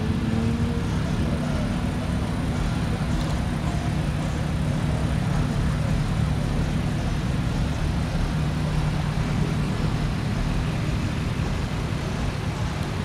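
2023 Nissan Z's twin-turbo V6 idling steadily, a constant low hum.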